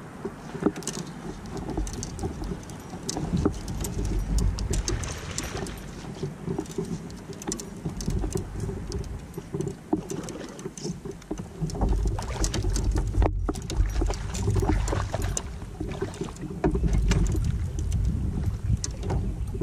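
Sounds aboard a fishing kayak: scattered clicks, taps and knocks from handling the rod, reel and gear, over a low rumble of wind on the microphone that swells and fades several times.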